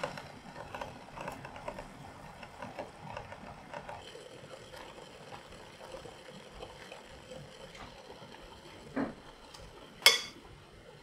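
Water boiling in a glass pot of noodles, with a fine crackle of bubbles. About nine seconds in there is a knock, and just after it a sharp clink of a metal fork against the glass as the noodles are stirred.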